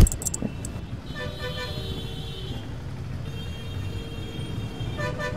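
Vehicle horns honking repeatedly in street traffic, several toots over a steady low engine rumble, after one sharp knock at the very start.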